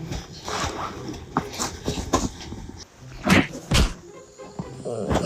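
A dog scuffling and thumping about while waking a sleeping man: a string of short knocks and rustles, the two loudest about three seconds in.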